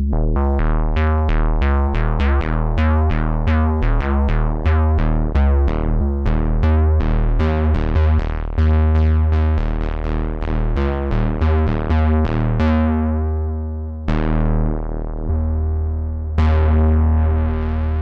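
Softube Model 72, a software emulation of the Minimoog Model D monophonic synthesizer, playing a bass preset. A fast run of short, plucky bass notes, about three or four a second, has its brightness closing off quickly on each note. Near the end it changes to a few longer held notes whose brightness sweeps up and down.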